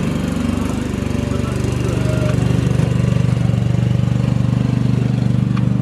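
A motor running steadily with a low, even drone.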